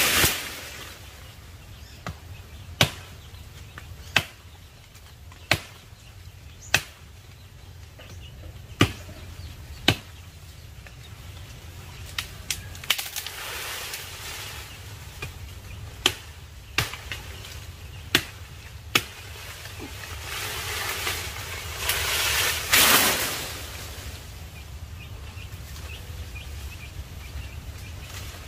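Chopping blows into the wood of a jackfruit tree being felled: single sharp strokes a second or two apart. Leafy branches rustle and rush in between, loudest around 22 seconds in.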